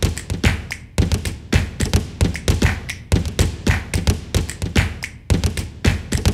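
A percussive sound-design soundtrack: a steady rhythm of sharp taps and deep thumps, several hits a second, each with a short ringing tail.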